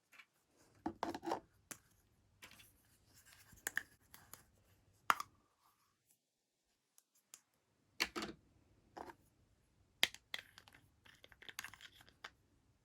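Hands unboxing a miniature toy kitchen set: scratching, tearing and light sharp clicks as the packaging and small pieces are handled. The sounds come in two bursts with a pause of a couple of seconds between them.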